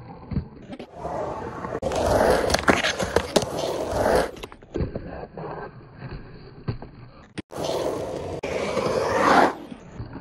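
Skateboard wheels rolling and carving across a concrete bowl, with the trucks scraping along the coping. Two loud rolling-and-scraping passes, about two seconds in and again near eight seconds in, with quieter rolling between.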